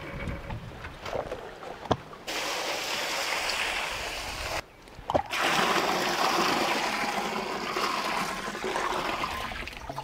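Grapes tumble from a steel bowl into a large aluminium pot, with a knock about two seconds in. Then a steady stream of water splashes onto the grapes in the pot, breaking off briefly around the middle and going on to the end.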